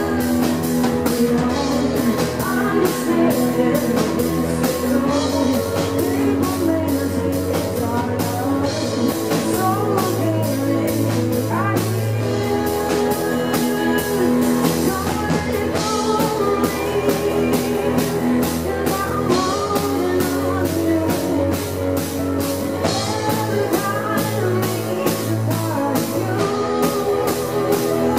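Live rock music: a woman singing over keyboard, with a steady drum beat.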